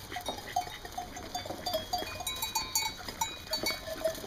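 A group of East Friesian dairy sheep eating grain from a feed trough: a busy, irregular patter of short clicks, knocks and clinks as their muzzles work the feed against the trough.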